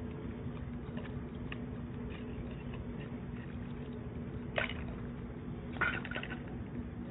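Dogs lapping water from a metal bowl: soft wet lapping with small clicks, and two louder sharp sounds about four and a half and six seconds in. A steady low hum lies underneath.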